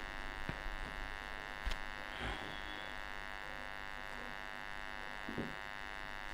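Steady electrical buzz, a mains-type hum with many overtones, holding level throughout, with a few faint clicks.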